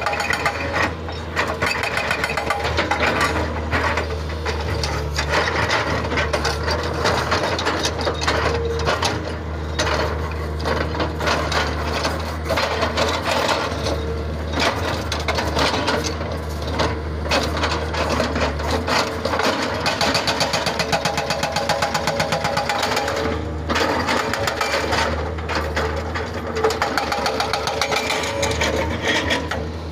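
Hydraulic breaker hammer on a Komatsu PC220 excavator pounding rock in rapid repeated blows, over the steady run of the excavator's diesel engine.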